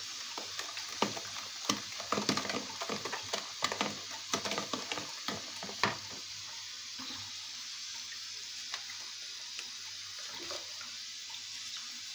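Wire whisk beating cake batter in a plastic bowl: quick, irregular clicks and scrapes for about six seconds, then the whisking stops, leaving a faint steady hiss with an occasional tap.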